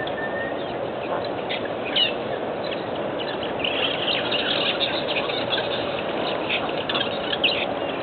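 Several birds chirping and calling in short, sharp notes over steady background noise, the calls thickest about four to five seconds in.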